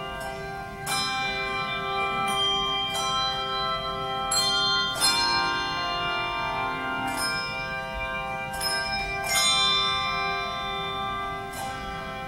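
Handbell choir ringing tuned handbells, striking chords every second or so and letting each one ring on into the next.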